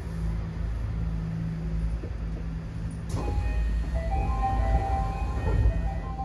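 Tokyo Monorail train standing at a station with a steady low hum. About three seconds in, after a click, a short electronic chime melody begins.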